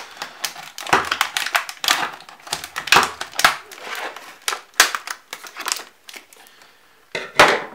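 Stiff clear plastic blister packaging being cut with scissors and bent open, making irregular crackling snaps and crinkling. It goes quieter about six seconds in, then gives one loud crackle near the end.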